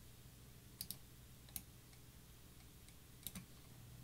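Faint clicks from a computer mouse and keyboard being worked, about five in all, in close pairs about a second in and near the end, over near-silent room tone with a low steady hum.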